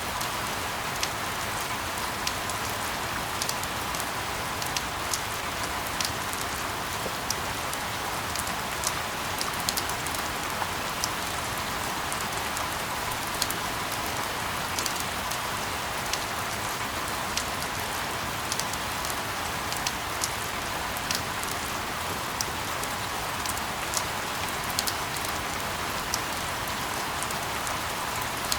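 Steady rain: an even hiss with many scattered, sharp drop ticks.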